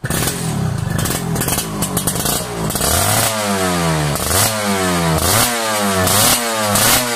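Kawasaki KRR 150 two-stroke motorcycle engine running through an aftermarket exhaust. About three seconds in it is revved in quick throttle blips, about two a second, each rising in pitch and dropping back.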